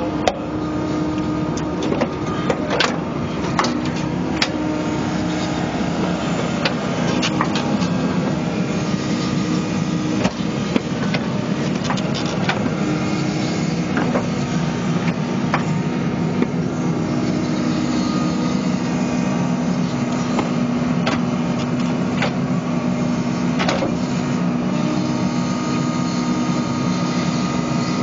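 New Holland Kobelco E80B midi excavator's diesel engine and hydraulics running steadily under digging load, the hum shifting lower about halfway through, with scattered knocks and clanks from the bucket and arm working the soil.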